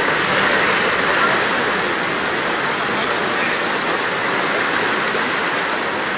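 Steady rushing of churning whitewater rapids in a slalom channel.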